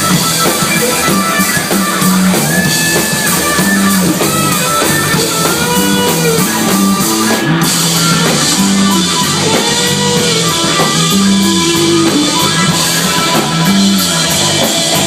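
Live rock band playing an instrumental passage: electric guitar over a repeating bass line and a drum kit.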